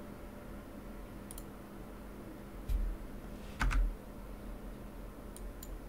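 Computer keyboard and mouse clicking at a desk: a few scattered light clicks and two louder dull thumps near the middle, over a faint steady hum.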